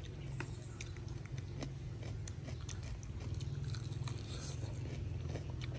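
Crispy deep-fried chicken drumsticks being bitten and chewed: scattered sharp crunches and crackles of the batter crust, over a steady low hum.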